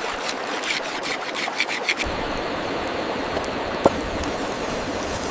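Small campfire of kindling crackling, with quick sharp pops over a steady rushing hiss; a single louder pop just under four seconds in.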